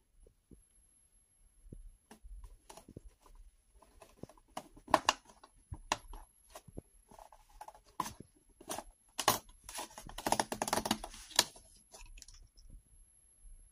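Fingers tapping and scratching on a cardboard LEGO City advent calendar, a scatter of light clicks. Then a perforated cardboard door is pushed in and torn open, a denser run of tearing and scraping from about nine to eleven and a half seconds in.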